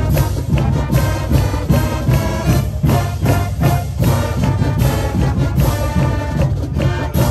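High school marching band playing its fight song live: brass over a steady, driving drum beat.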